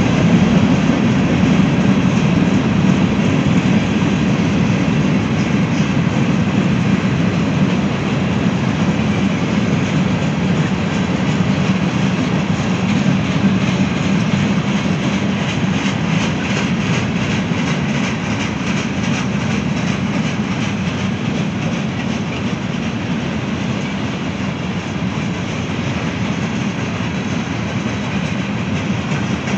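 Freight cars of a mixed freight train rolling past: a steady rumble of steel wheels on rail, with fine clicking of the wheels over the rail joints.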